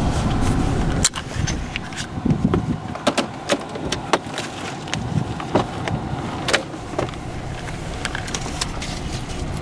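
Handling noise inside a car: a low car rumble drops off suddenly about a second in, followed by scattered clicks, knocks and rustles as the camera is moved about.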